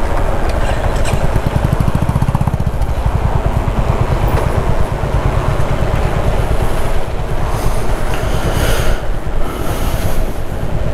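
Motorcycle engine idling, a steady low, fast, even thumping.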